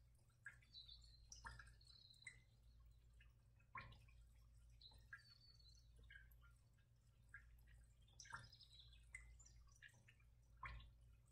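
Near silence: faint room tone with a low hum, scattered soft ticks and a few faint high chirps.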